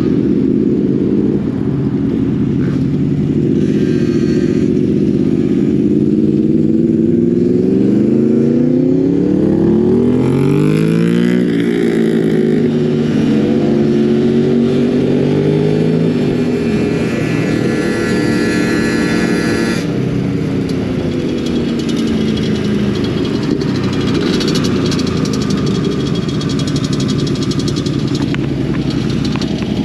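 Motorcycle engines running and revving on a group ride, several at once, their pitch rising and falling; one climbs sharply in pitch about ten seconds in as it accelerates.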